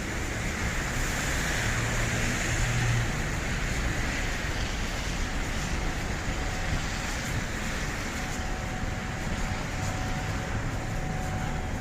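Steady transport noise: a continuous rumble and hiss of vehicles with a faint steady tone running through it.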